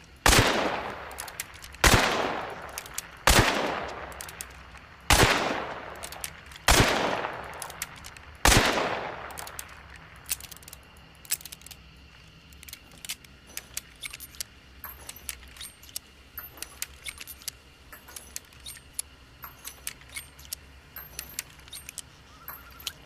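A revolver fired six times, a shot about every second and a half, each with a long echoing tail. A run of light clicks and ticks follows.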